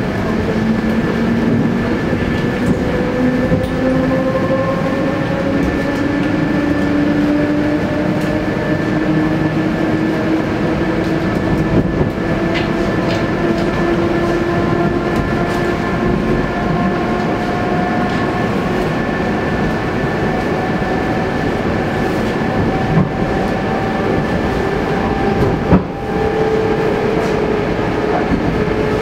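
Inside a carriage of an ET2M electric train under way: the steady running noise of the wheels on the track, with the traction motors' whine rising slowly in pitch as the train gathers speed. One short knock near the end.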